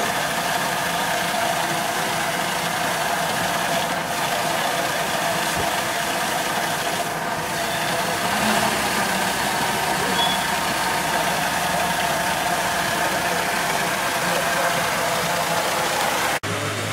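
Small four-wheel drive's engine running steadily at low revs as it wades through deep, muddy creek water. The sound breaks off abruptly near the end.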